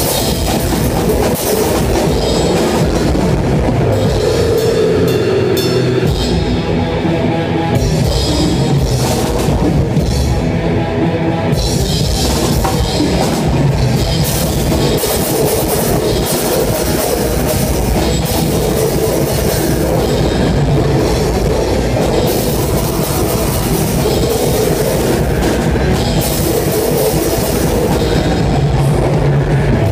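A rock band playing loud and live, with the drum kit up front: drums and cymbals being struck steadily over the rest of the band.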